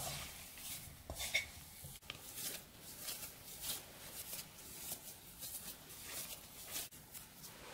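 Hands squeezing and pressing crumbly shortcrust pastry into a ball in an earthenware bowl: a run of soft, irregular rubbing and crumbling strokes, with fingers brushing the bowl's sides.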